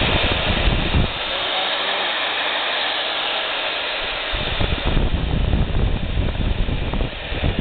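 Milwaukee 4206-1 magnetic drill press motor running steadily in forward on its variable-speed control, a continuous whir, with low rumbling surges in the first second and again from about four seconds in.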